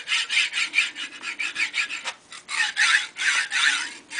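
Thompson ball-bushing pillow blocks sliding back and forth along 5/8-inch steel rods: the recirculating steel balls make a quick series of short sliding strokes, with a brief pause about two seconds in.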